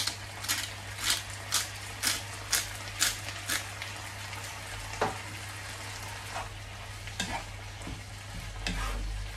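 Hand pepper grinder being twisted over a frying pan, a crunching grind about twice a second for some three and a half seconds, over the steady sizzle of onions and beef frying. Then a wooden spatula stirs and scrapes the food in the pan, with a few irregular knocks.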